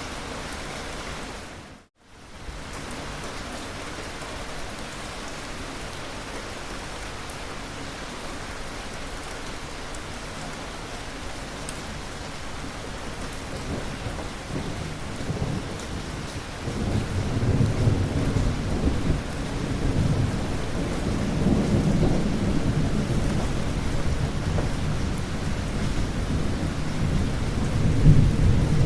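Steady rain with a low roll of thunder that builds from about halfway through and rumbles on, loudest near the end. About two seconds in, the sound briefly fades to silence and comes back.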